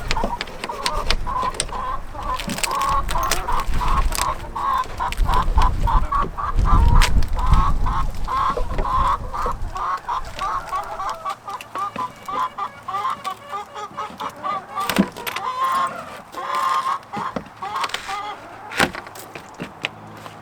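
Chickens clucking over and over in short, quick calls. Sharp knocks come now and then, and a low rumble runs under the first half.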